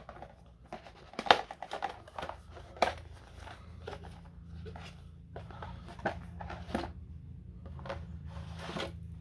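Hands handling and opening packaging around board-game pieces: irregular crinkling and rustling with scattered sharp clicks and taps, the loudest about a second and a half in and again near three seconds.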